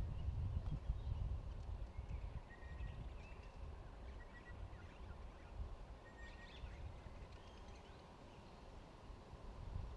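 A low, uneven rumble, strongest at the start and again near the end, with scattered short bird chirps over it.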